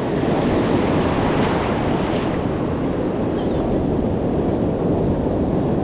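Ocean surf and wind buffeting the microphone: a steady rushing noise.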